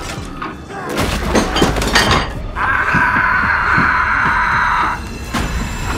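Film fight sound effects: a quick run of thumps and crashing hits, then a harsh rasping noise held for about two and a half seconds.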